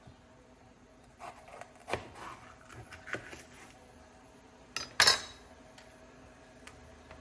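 Hard objects being handled and set down: a few knocks and clinks, the loudest a sharp ringing clink about five seconds in.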